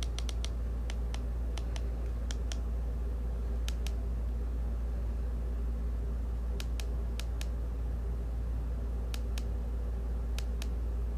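Pairs of short, sharp clicks, several groups spread over the seconds, from buttons being pressed on a cordless tire pump, over a steady low hum. The pump's motor is not running: it has not yet been switched on to inflate.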